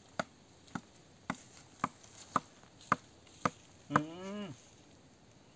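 A wooden hand tamper with a flat round end striking the soil in a pit: sharp, evenly paced knocks about twice a second, seven in all. About four seconds in there is a short cry that falls in pitch.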